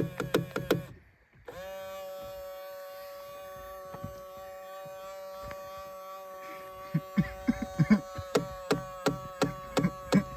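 2000 Ford Explorer power side-mirror motor making its funny noise: rapid buzzing clicks that stop about a second in, then a steady hum, with the clicking starting again over the hum about seven seconds in.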